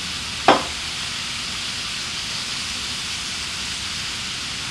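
Seasoned meat frying in a hot skillet on a portable gas burner, a steady sizzling hiss as it crisps over raised heat. One sharp knock about half a second in.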